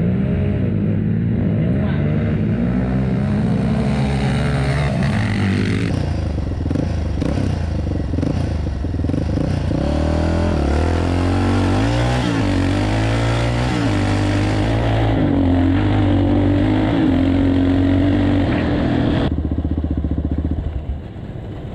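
Yamaha Raptor 700 ATV's single-cylinder engine under hard acceleration on a dirt drag strip. Its pitch climbs and drops several times as it revs and shifts, over steady wind rush on the microphone.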